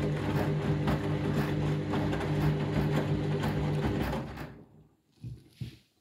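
Candy Grand'O Vita front-loading washing machine tumbling its drum through rinse water: a steady motor hum with water sloshing. The drum stops about four and a half seconds in, and a couple of faint short sounds follow.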